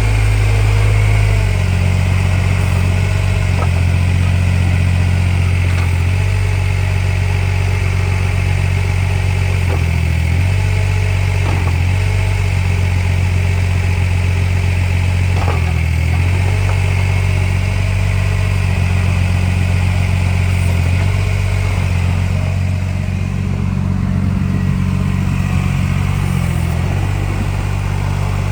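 Yanmar YB10 mini excavator's diesel engine running steadily. Its pitch dips and shifts briefly a few times, around ten and sixteen seconds in, and there are a few faint clunks.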